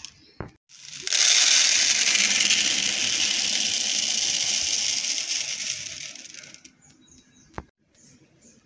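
Dry raw rice poured into a plastic bowl: a steady rushing patter of falling grains for about five seconds that tapers off, with a single click just before it starts and another near the end.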